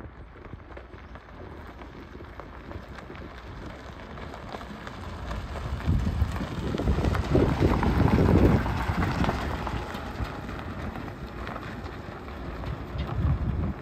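Tyres of a small Wuling electric pickup crunching over gravel as it drives up and past, getting louder as it nears, loudest about eight seconds in, then fading as it pulls away. Some wind on the microphone adds a low rumble.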